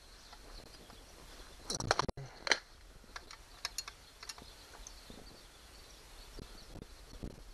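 Screwdriver working the screws of a Razor E95 electric scooter's battery compartment: a cluster of knocks and clicks about two seconds in, then a few light ticks.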